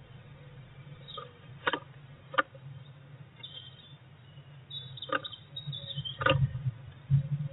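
Blue tit moving about on the wooden floor of a nest box: a few sharp taps and scratches of its feet and beak on the wood, then a louder wing flutter and thump about six seconds in. Faint high bird calls are heard in the background.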